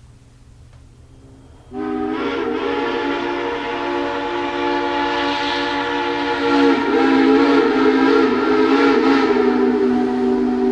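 Steam train whistle blowing one long multi-note chord that starts about two seconds in and holds, shifting slightly in pitch about halfway through.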